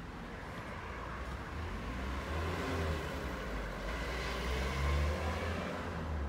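Low rumble of passing road traffic, swelling to its loudest about five seconds in and easing off near the end.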